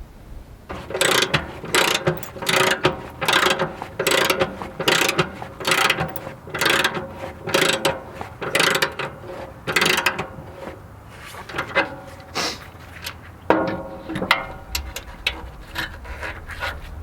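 A hand-worked ratchet mechanism clicking in regular strokes about once a second, then in slower, uneven strokes with a metallic ring in the later seconds.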